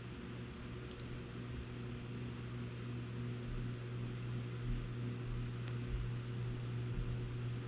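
Steady low electrical hum with an even hiss of room tone, with a few faint small clicks.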